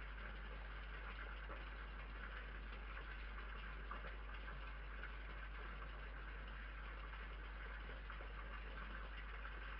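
Steady hiss with a constant low hum from a night-time security camera's microphone, with no distinct sound events standing out.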